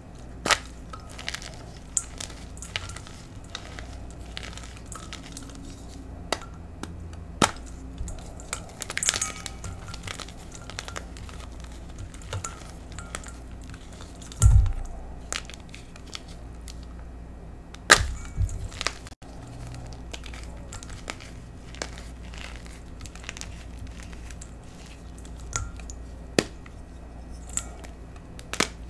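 A block of gym chalk coated in pigment powder being squeezed and crumbled by hand: irregular sharp cracks and crumbling, with louder crunches about halfway through and again a few seconds later.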